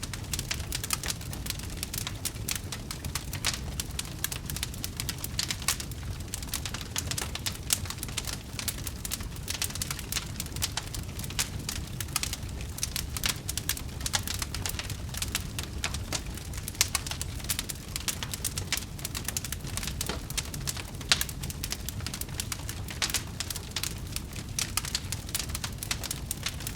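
Wood fire crackling in a fireplace: many irregular sharp pops and snaps over a steady low rumble of the flames.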